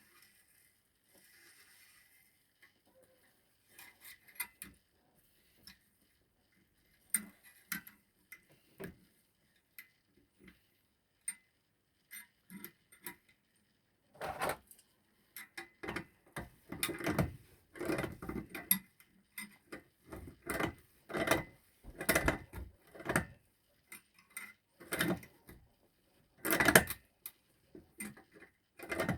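Hand tools clicking and knocking on metal in a run of irregular strokes. They are sparse at first and become louder and closer together from about halfway through.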